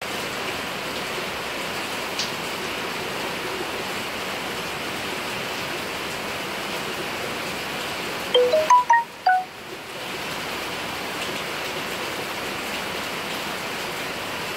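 A steady rushing water-like hiss. About eight seconds in, a quick run of six or seven bright chime-like notes sounds, and the hiss briefly drops out before returning.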